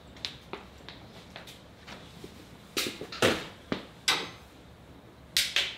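Irregular knocks and clatters of tools and loose metal parts being handled and set down on a motorcycle lift, about a dozen in all, the loudest about three and four seconds in.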